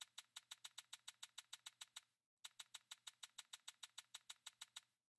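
Faint, rapid, evenly spaced digital clicks, about eight a second, in two runs with a short break about two seconds in. This is the online roulette game's chip-placement sound effect as stacks of bets are laid on the table.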